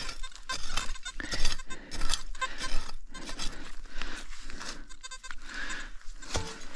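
Hand shovel digging into forest soil and dry leaf litter: a quick series of scraping, crunching strikes, about three a second, as a hole is opened to reach a deep metal-detector target.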